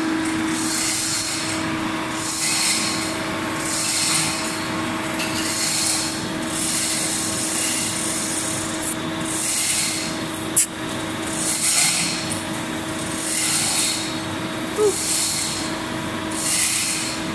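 Hand-chain hoist being hauled: the chain rasps and rattles through the hoist in repeated pulls about every second and a half, lifting a vertical pump column. A steady low hum runs underneath, with one sharp click about ten seconds in.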